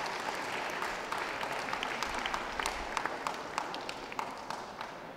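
Audience applauding, a dense patter of many hands clapping that dies away over the last couple of seconds.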